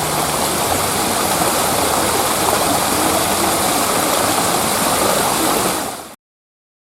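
Steady rush of falling water, as from a garden waterfall or stream, cutting off abruptly about six seconds in.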